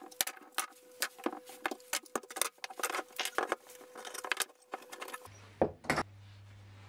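Woodworking clamps being taken off a glued-up board: a quick run of clicks, rattles and knocks as metal bar clamps are loosened and plastic spring clamps released and set down. Two louder knocks come a little before the end.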